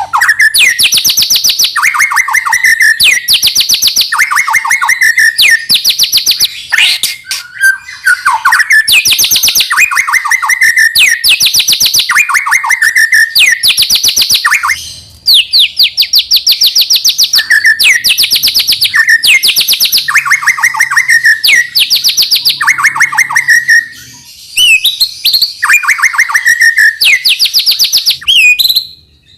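White-rumped shama (murai batu) singing loudly in a repeated pattern: a fast, high rattling trill followed by a lower whistled phrase, over and over about once a second. In the second half the phrases grow more varied, with rising whistles near the end.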